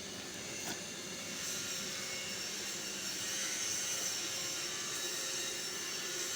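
Electric arc welding on a pipe: the arc gives a steady, even hiss, with a brief tick a little under a second in.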